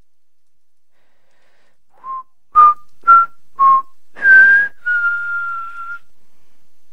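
A person whistling a short tune: four quick notes, then a higher note and one long held note of about a second.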